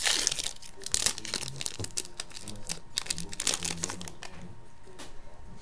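A hockey card pack's wrapper being torn open and crinkled, with a sharp crackle at the start and another about a second in, then lighter rustling and clicks as the cards are slid out and handled, dying down after about four seconds.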